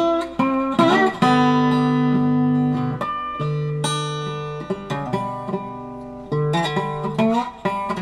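Background music: a guitar instrumental of plucked notes that ring and fade, with a few sliding notes.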